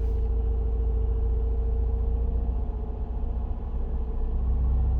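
Cabin noise of a 2005 Chrysler Town & Country's 3.8-litre V6 minivan on the move: a steady low engine and road rumble. A steady hum over it fades out about halfway through.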